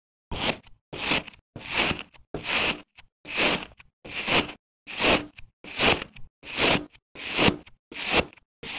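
Kitchen knife slicing repeatedly into packed sand held in a wooden box: about a dozen short cutting strokes, a little over one a second.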